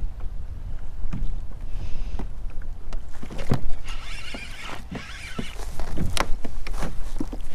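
Spinning reel being cranked against a hooked fish, its whir coming in spells, with scattered clicks and knocks of rod and reel against the kayak. Wind rumbles on the microphone underneath.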